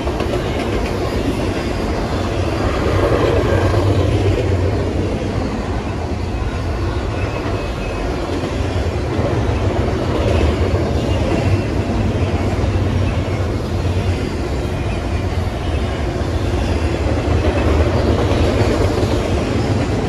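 Double-stack intermodal container well cars of a long freight train rolling past at speed: steady, loud wheel-and-rail noise that swells a little now and then.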